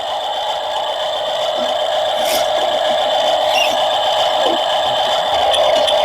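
Small electric motors of a radio-controlled excavator whining steadily, with a few faint ticks.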